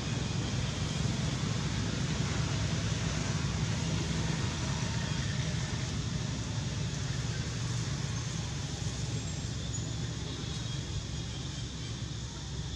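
Steady outdoor background noise: a constant low rumble with a fainter hiss over it, easing off slightly near the end.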